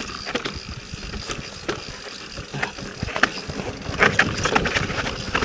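Yeti SB 4.5 mountain bike rattling and clattering down a steep, rough trail, with irregular knocks and clicks from the bike, heavier from about four seconds in.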